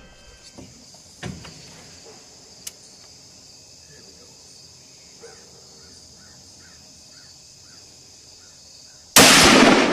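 A steady insect buzz with a faint string of repeated chirps, then a single hunting-rifle shot about nine seconds in, the loudest thing by far, with a long fading tail.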